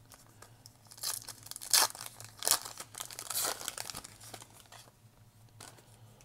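Foil wrapper of a Donruss Optic baseball card pack being torn open by hand, crinkling and ripping in irregular bursts, loudest about two seconds in.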